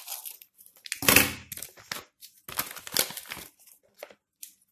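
Plastic packaging of a packet of Shilpkar clay crinkling as it is handled, in short irregular bursts, the loudest about a second in.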